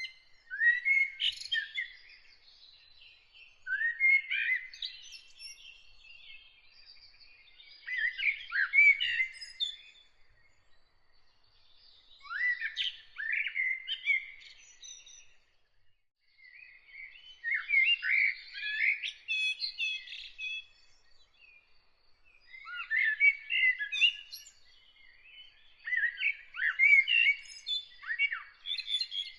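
A songbird singing in short varied phrases, each a second or two long, with pauses of about two seconds between them. A fainter thin, high, repeated note from a second bird runs under the middle stretch.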